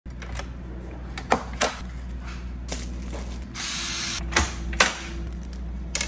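Drawers of a metal tool cabinet being pulled on their runners: a series of sharp clacks, a sliding rush about three and a half seconds in, and two more clacks near the end, over a steady low hum.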